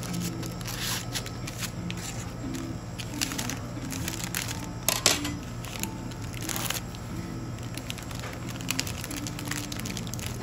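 Clear plastic packaging crinkling and rustling in gloved hands as a macaron is bagged, with scattered light clicks and taps; the sharpest crackle comes about five seconds in.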